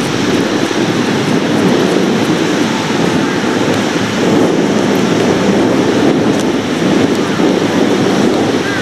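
Wind buffeting the microphone: a loud, rough rumble that swells and eases in gusts.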